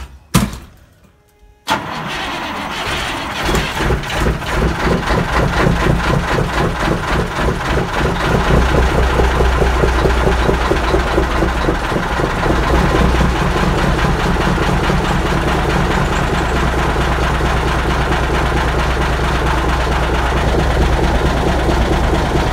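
Peterbilt 359 semi truck's diesel engine cold-started in freezing weather: after a short knock, it starts suddenly and runs unevenly for several seconds, then settles into a steady, deep idle about eight seconds in.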